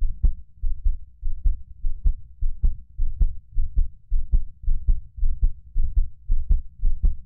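Heart sounds derived from a high-fidelity aortic pressure recording of a subject without heart disease: a regular beat of low thuds with sharp clicks, a little under two beats a second.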